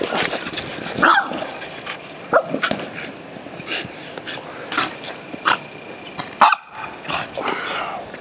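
A small black-and-white dog giving short, sharp play barks and yips about six times as it chases and mouths a ball, the loudest near the end.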